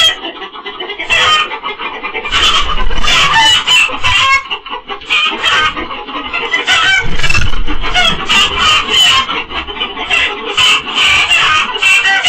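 Chickens cackling and squawking loudly over and over: alarm calls with a fox in the coop.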